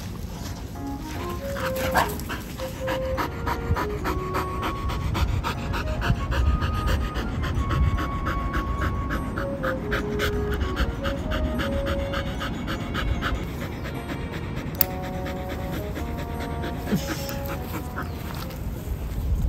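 Samoyed panting hard with its tongue out, worn out after a few minutes of running, over light background music of short melodic notes.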